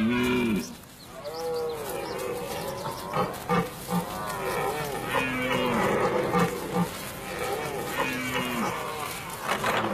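Red deer stags roaring in the rut: a series of calls that each rise and fall in pitch, repeated several times.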